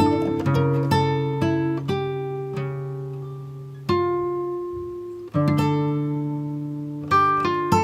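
Acoustic guitar playing: plucked notes and chords ringing out and dying away, with fresh chords struck about four and five seconds in.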